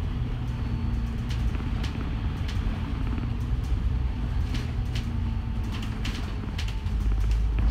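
Cabin sound of a double-decker bus in service: a steady low engine and road rumble with a faint droning tone, and frequent light rattles and clicks from the body and fittings.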